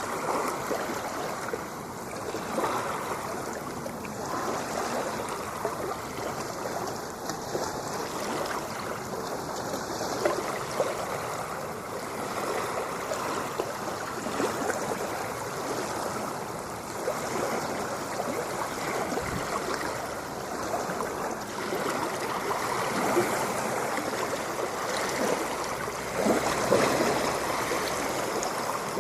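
Ocean waves washing on a shore: a continuous wash of moving water with no distinct breaks.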